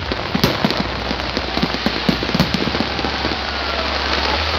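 Fireworks finale crackling densely: many small sharp pops over a hissing wash, with a few louder bangs in the first half.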